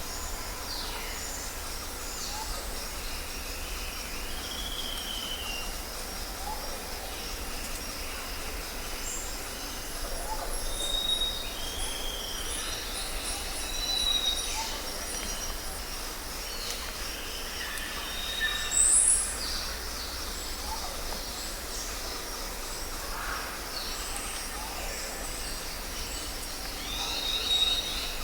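Several birds chirping and whistling: many short calls, some gliding in pitch, scattered throughout, with one louder high chirp a little past the middle. Under them runs a steady low rumble and hiss.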